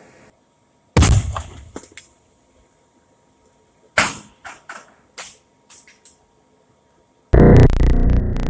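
Aerosol spray-paint cans bursting inside a burning washing machine. A heavy boom comes about a second in and a sharp bang at about four seconds, each followed by a few smaller pops. Loud music starts near the end.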